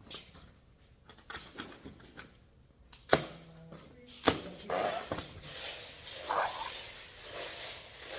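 Hardware being handled on a workbench: a few light clicks, then two sharp knocks about three and four seconds in, followed by shuffling and scuffing.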